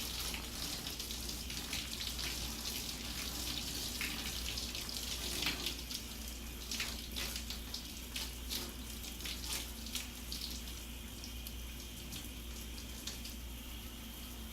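Water running steadily with irregular splashing as conditioner is rinsed out of hair.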